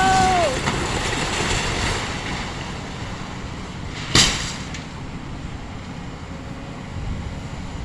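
Demolition of a house by an excavator: a rumbling crash of falling walls and debris that fades over the first two seconds, then a single sharp crack about four seconds in.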